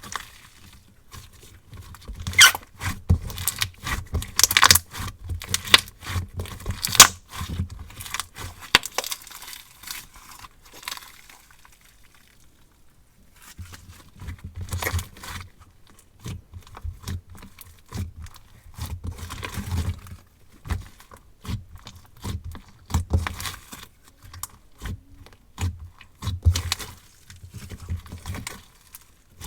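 Hands squishing, poking and stretching a marshmallow lemon slime made with Elmer's glue, giving irregular sticky clicks, pops and crackles, with a brief lull a little under halfway.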